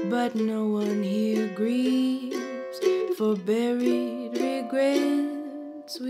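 Music: a slow waltz with no singing, its melody notes held and sliding from one pitch to the next over a second part.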